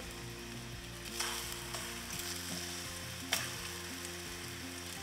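Plantain slices sizzling in hot oil in a frying pan as more slices are dropped in; the sizzle grows louder about a second in, with a sharp tap a little after three seconds.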